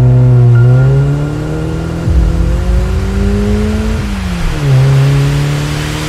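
A car engine revving as it accelerates. Its pitch climbs for about three seconds, falls sharply about four seconds in as at a gear change, then holds steady.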